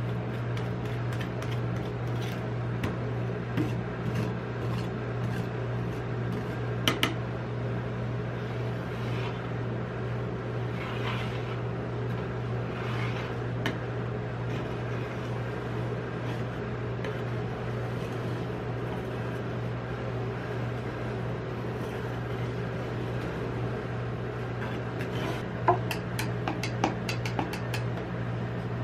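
Metal spatulas scraping and tapping on the steel cold plate of a rolled ice cream machine, with a few sharp clicks now and then, over the steady hum of the machine's refrigeration unit.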